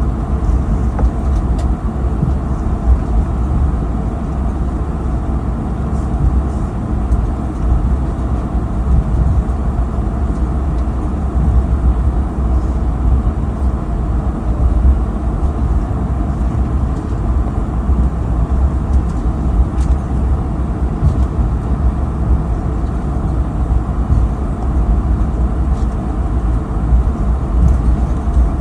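Cabin noise of an Airbus A220-300 taxiing after landing: a steady low rumble of wheels and engines, with no change throughout.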